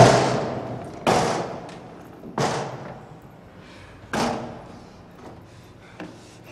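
Four heavy thuds, the first the loudest, coming one to two seconds apart, each dying away slowly after the hit.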